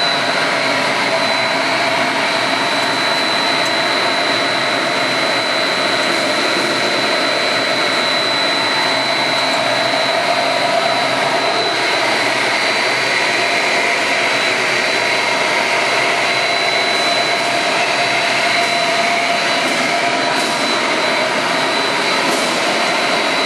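Twin-die plastic film extruder line running: a constant rushing machine noise with a steady high whine over it.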